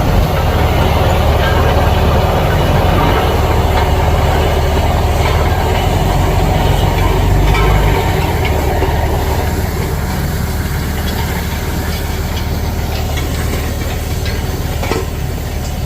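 Heavy vehicle engine running steadily with a low rumble and some rattling; the rumble eases a little about eight seconds in.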